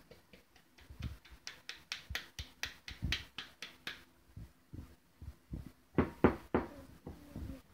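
Rubber spatula working batter against a stainless steel mixing bowl in quick scraping strokes, about five a second. Then three louder knocks on the bowl, after which it rings briefly.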